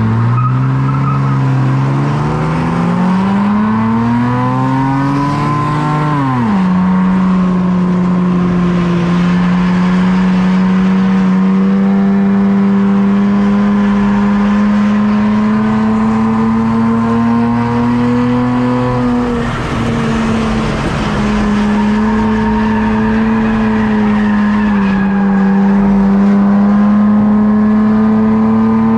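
Race car engine heard from inside the car, running hard: the revs climb for about six seconds, drop sharply, then hold high and steady, with a brief lift about twenty seconds in.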